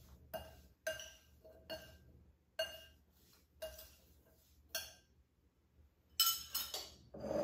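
Small glass dish tapped against the rim of a glass mixing bowl while cinnamon sugar is knocked out of it onto chopped apples: sharp glass clinks with a short ring, about one a second. Near the end comes a quicker, louder cluster of clinks.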